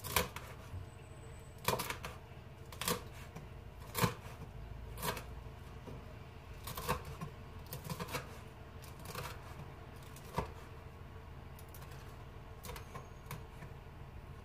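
Kitchen knife chopping crisp fried chicken on a wooden cutting board: a sharp chop roughly once a second, the strokes lighter and more scattered in the last few seconds.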